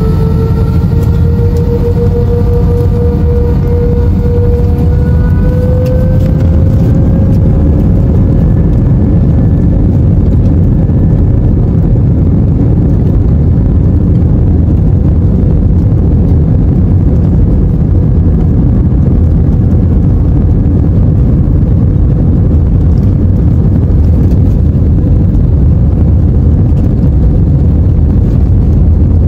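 Airbus A320-232's IAE V2500 turbofan engines spooling up, a whine that rises over the first several seconds, then a steady loud roar over a deep rumble, typical of takeoff thrust.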